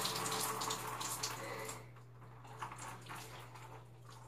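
Water splashing down and dripping, fading out after about two seconds into scattered drips and small knocks.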